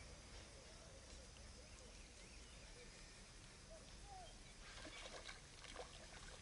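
Near silence: faint outdoor ambience with a few faint bird chirps, and a brief patch of soft clicks and rustles about five seconds in.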